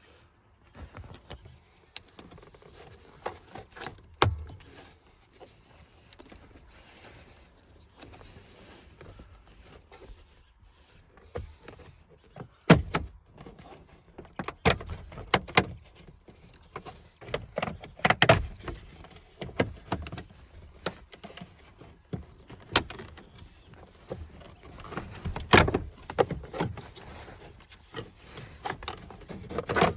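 Hand tools and plastic trim clicking, knocking and rattling at irregular intervals as the steering column cover on a 2000 Ford F-150 is unscrewed and worked loose. The knocks are sparse at first and come thicker and louder about halfway through.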